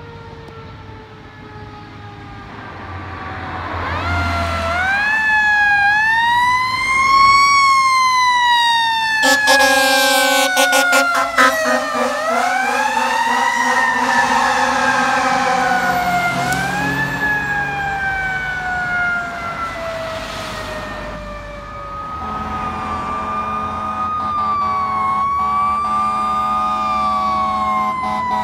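Fire engine sirens wailing, rising and falling in pitch, with a horn blast about nine seconds in. After a cut near the end, another engine's siren goes up and down more quickly.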